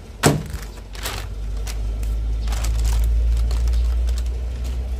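A single sharp knock, then a low rumble that builds over a couple of seconds and eases off, with light rustling of plastic seal packaging.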